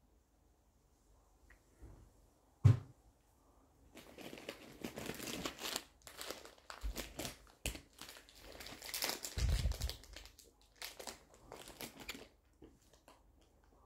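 Crinkling rustle of fingers scratching through a cockatiel's head and neck feathers, going on and off for about eight seconds. A single sharp knock comes about two and a half seconds in.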